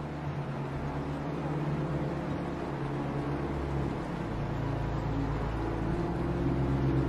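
Low, dark drone of several sustained tones held under the footage, shifting in pitch about four seconds in and again near the end.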